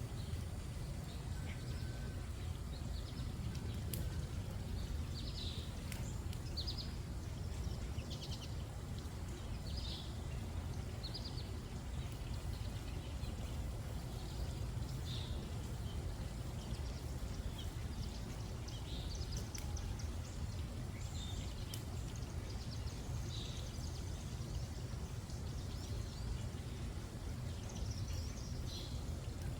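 Small birds chirping on and off, short high calls every second or two, over a steady low rumble.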